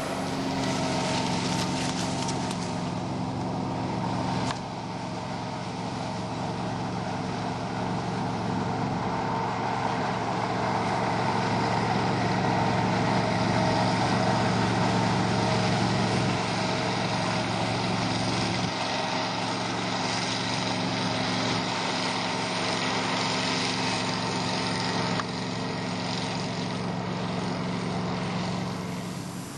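Mechanical corn detasseling machine running steadily as it works down the rows pulling tassels, a continuous engine hum that shifts in level a few times.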